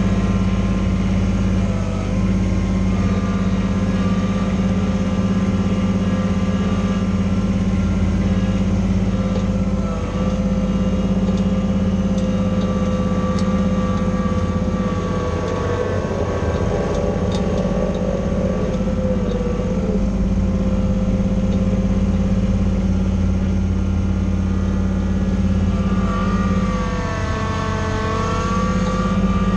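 Kubota BX25 sub-compact tractor's three-cylinder diesel engine running steadily during loader work, its pitch shifting briefly about halfway through and again near the end.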